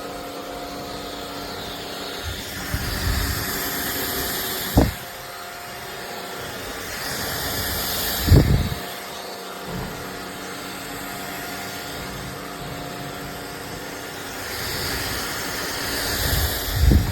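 Iirios 580 W cordless stick vacuum running with a steady motor hum. The sound swells three times, each swell ending in a short knock: about five seconds in, about eight seconds in, and near the end.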